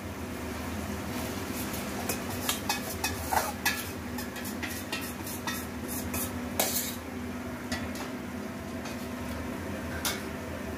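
Marinated chicken being tipped and scraped out of a steel bowl into a metal kadai: repeated clinks and scrapes of metal on metal as the bowl knocks the pan, the loudest about six and a half seconds in and a last few near the end.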